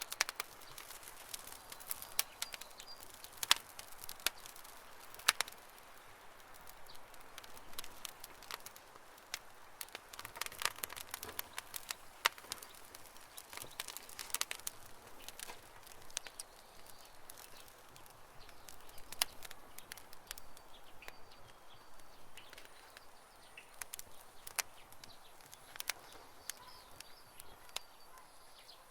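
Wood fire crackling, with irregular sharp pops and snaps over a soft hiss. A few faint bird chirps are heard in the background.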